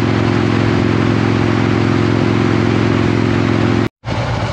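Harley-Davidson Road King's V-twin engine running steadily at cruising speed, with wind rushing over the microphone. It cuts off suddenly near the end, giving way to quieter, less even engine running.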